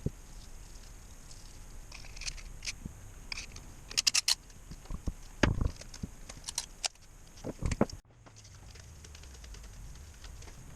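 Scattered sharp clicks and metallic clinks of hand tools and engine parts being handled on a workbench, with a quick cluster about four seconds in.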